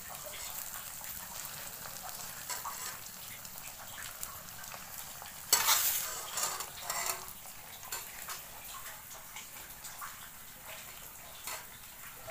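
Food frying and sizzling in a metal wok on a gas stove while a long metal spoon stirs it, scraping and clinking against the pan. The loudest scrape comes about five and a half seconds in.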